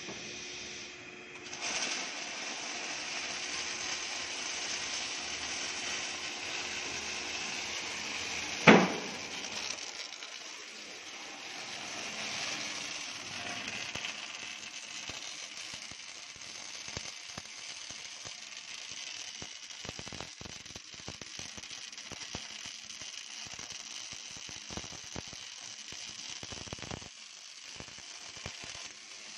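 MAG welding arcs of an automatic pipe-flange circular-seam welder crackling and hissing steadily as two seams are welded at once, with a single sharp pop about nine seconds in.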